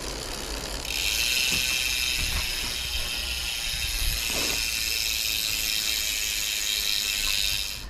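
A hand-spun DT Swiss R470 bicycle wheel freewheeling, its freehub pawls ratcheting in a fast, even, high buzz. The buzz starts about a second in and stops sharply near the end.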